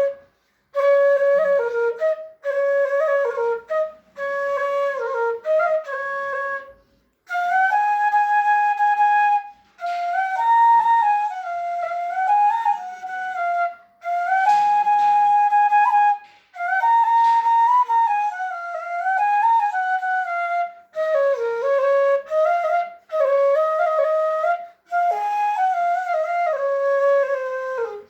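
A single wind instrument playing a slow solo melody, one note at a time with slides between notes, in phrases of a few seconds separated by short breaks.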